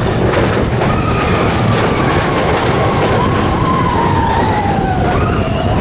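Mine-train roller coaster running along its track, a steady loud rumble and rush of wind. Over it, a long high wail slides slowly down in pitch for about four and a half seconds, starting about a second in.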